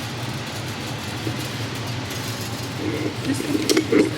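Steady low hum of room ambience, with a few light clicks and faint voices near the end.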